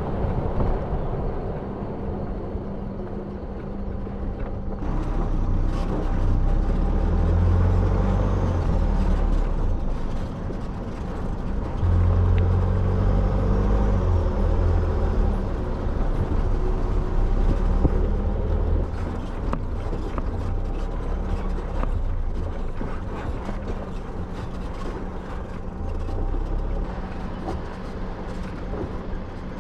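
A vehicle driving on the road: a steady low engine rumble with tyre and wind noise, which gets louder about five seconds in.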